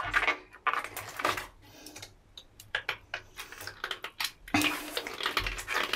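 Wet latex water balloons squeezed and rubbed between hands, making scattered small squeaks, clicks and rubbing noises that grow busier toward the end.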